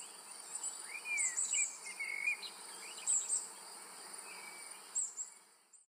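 Nature ambience of insects droning steadily at a high pitch, with short rising-and-falling chirps scattered throughout; it fades out near the end.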